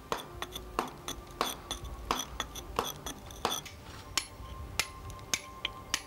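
Hammer blows on a steel chisel cutting into a block of stone, a regular stroke about every two-thirds of a second, each with a short metallic ring.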